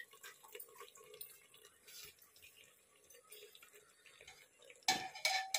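Drained, parboiled rice being tipped from a wire strainer into an aluminium pot: faint scattered ticks and soft wet noise, then several sharp metallic clinks with a short ring near the end as the strainer knocks against the pot.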